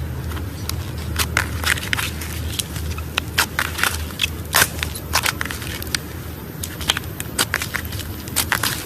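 Slime being squeezed and crushed by hand, giving irregular sharp crackling pops and clicks, several a second, over a steady low hum.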